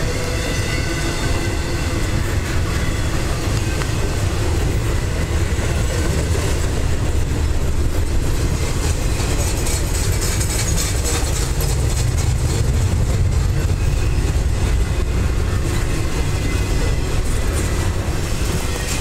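Double-stack intermodal train's loaded well cars rolling past close by: a steady rumble of steel wheels on rail, with some clickety-clack over the joints.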